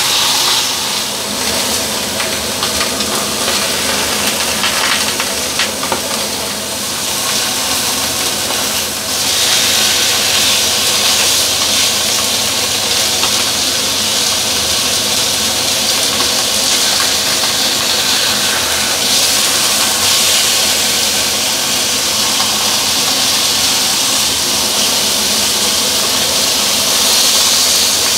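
Fish fillets sizzling as they fry in a hot frying pan: a loud, steady hiss.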